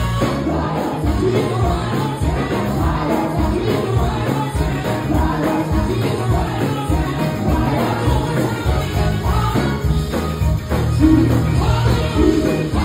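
Live gospel music: several women's voices singing together into microphones over a live band with electric guitar and a steady, heavy beat, amplified through a PA system.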